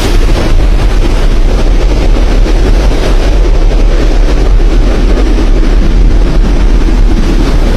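Thunderstorm wind buffeting the microphone: a loud, steady noise, heaviest in the low end, with no separate claps.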